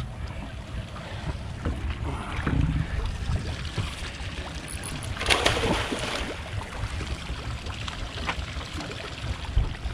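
Water sloshing against the side of a small fishing boat over a steady low rumble, with a louder splash about five seconds in.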